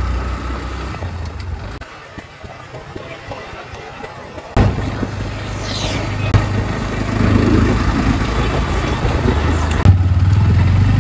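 Motorcycle engine running while riding, dying away over the first few seconds. After a sudden change about halfway, a louder steady engine hum of road traffic follows as motorcycles approach.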